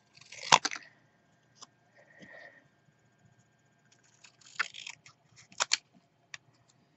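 Small scissors snipping through cardstock: one sharp snip about half a second in, then a run of snips near the end, with quieter paper handling between.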